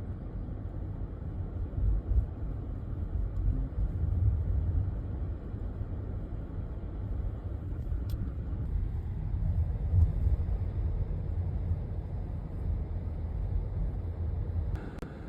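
Car driving along, its engine and road noise making a low, uneven rumble.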